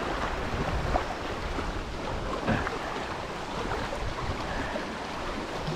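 Choppy lake water lapping and splashing against shoreline rocks, with wind buffeting the microphone.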